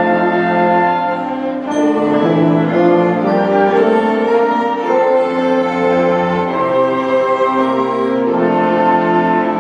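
Orchestra playing, with bowed strings sustaining long held chords that change every second or two.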